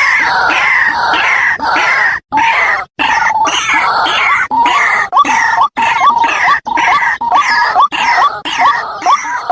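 White-breasted waterhen (ruak-ruak) calling: loud, harsh croaking notes repeated rapidly, about three a second. The calling is broken by a few sudden short gaps.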